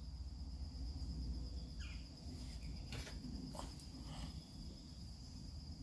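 A few soft puffs and lip sounds of a man drawing on a Missouri Meerschaum corncob pipe, over a steady low rumble and a faint, steady high-pitched tone.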